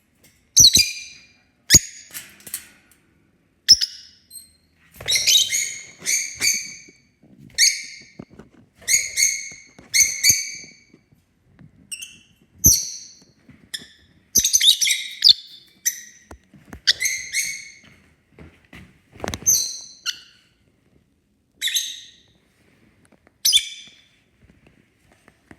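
Pet parrots calling loudly over and over, a run of short, harsh, high calls with gaps of a second or two, mixed with a few sharp clicks. The birds are calling to be let out of their cage.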